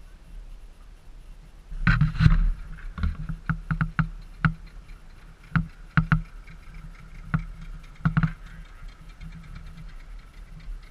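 Outboard motor running at low speed, a steady low hum with a faint higher whine, broken by irregular sharp knocks and slaps, loudest about two seconds in.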